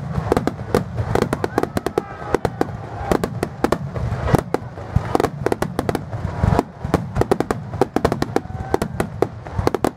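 Fireworks display: aerial shells launching and bursting in a dense, rapid run of bangs and crackles, many a second, with the loudest burst about four and a half seconds in.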